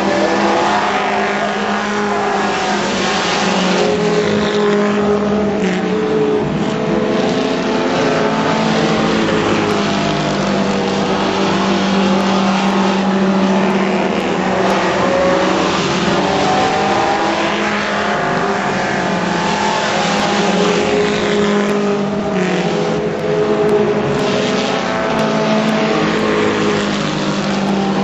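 A field of four-cylinder ministock race cars running laps on a dirt oval. Several engines overlap, their pitch rising and falling as the cars accelerate and lift through the turns, with no break in the noise.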